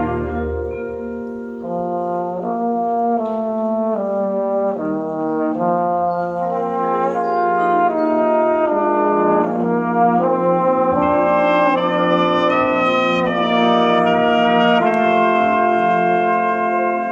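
Marching band brass section playing a slow melodic passage in full chords, the notes moving step by step about once a second over held low bass notes.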